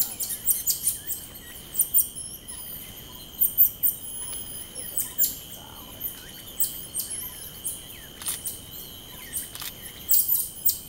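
Rainforest sounds: many short, very high-pitched chirps come and go over a steady, high insect drone.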